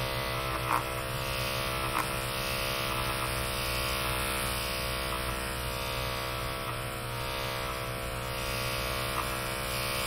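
Cordless electric hair clipper running with a steady hum as its blade cuts through hair on top of the head, with a few short clicks in the first two seconds.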